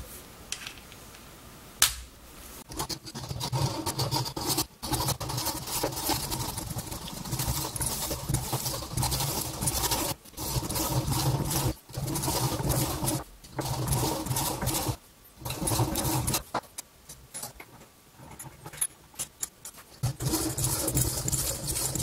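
A hand metal saw cuts through the metal housing of an encoder clamped in a vise. It makes rasping back-and-forth strokes that start about two seconds in and come in runs with several short pauses.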